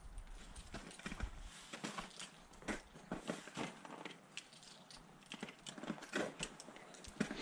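Irregular sharp clicks and crunches of a climber's gear on ice, as someone ascends a fixed rope on jumars.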